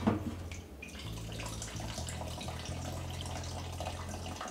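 Old gasoline trickling out of a motorcycle fuel tank in a thin, steady stream, draining slowly.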